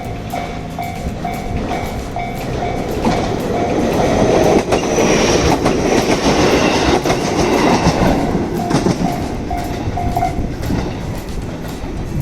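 JR Shikoku 7000 series electric train passing over a level crossing, its wheels clacking over the rail joints; it is loudest about halfway through. The electronic crossing bell rings at about two dings a second, heard clearly at the start and again near the end.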